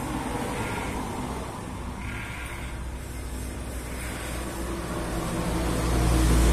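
Corded electric hair clippers running steadily as they cut hair on top of the head. A low rumble swells louder near the end.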